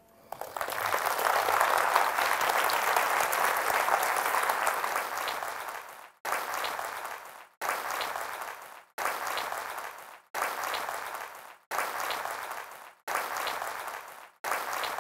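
Audience applause. About six seconds in, the clapping breaks into a string of short bursts, each starting suddenly and fading, roughly one every second and a half.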